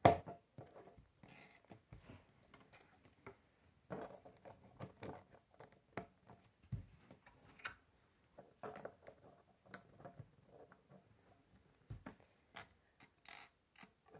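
K'nex plastic rods and connectors clicking as they are snapped together and handled, with pieces tapping on a wooden table: an irregular string of small clicks and taps, the sharpest right at the start.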